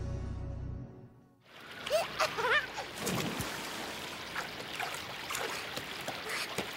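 Theme music fades out about a second in, giving way to the steady splash of fountain water. Short squeaky chirps from the cartoon fly come about two seconds in, with scattered light clicks.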